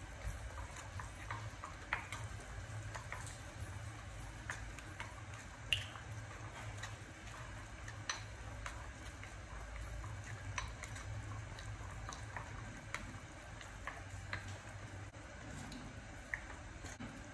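A spoon stirring and mashing a wet raw prahok and herb paste in a ceramic bowl, with irregular light clicks of the spoon against the bowl. A steady low hum runs underneath.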